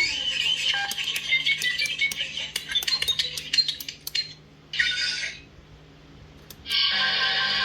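Electronic sci-fi sound effects from a movie-prop control panel, played through a small speaker: rapid beeps and clicks for about four seconds, a short hiss about five seconds in, then a steady electronic drone from about seven seconds.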